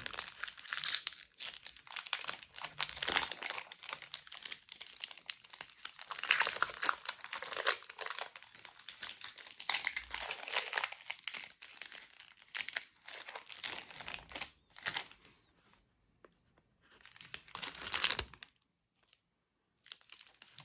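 Crinkling and tearing of a Feastables Mr Beast Crunch chocolate bar wrapper as it is opened by hand, with a dense crackling rustle that dies away after about fifteen seconds, a last short burst, then quiet.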